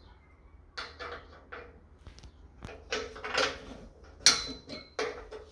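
Metal parts and hand tools clinking and clattering as a treadmill is assembled, with a series of irregular knocks that get busier partway through. One sharp metallic clink rings on briefly.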